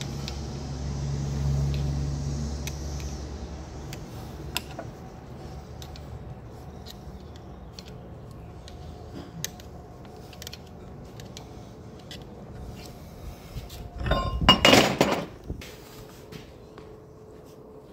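Faint, scattered metallic clicks of a small hand tool working around the bearing on a steel axle spindle, while a low hum fades out in the first few seconds. About 14 seconds in comes a loud metal clatter lasting about a second and a half, as the heavy cast axle part is handled.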